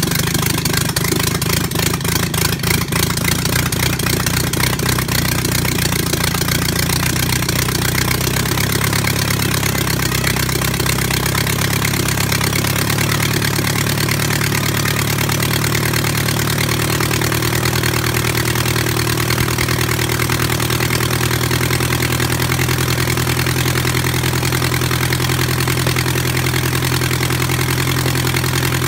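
Volkswagen 1600 single-port air-cooled flat-four running on a test stand on its first run, turning a cut-down Piper J3 Cub wooden propeller. It runs a little unevenly in the first few seconds, then settles; its speed rises slightly about a third of the way in and holds steady.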